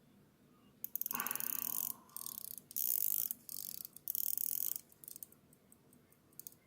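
Rolex 9-carat gold pocket watch being wound at the crown from run-down: the winding ratchet clicks in rapid runs, about five bursts of quick turns, then fainter scattered clicks near the end.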